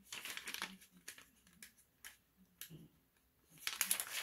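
Clear plastic laminating pouch rustling and crinkling as it is handled and flexed, in uneven bursts, quieter in the middle and louder near the end.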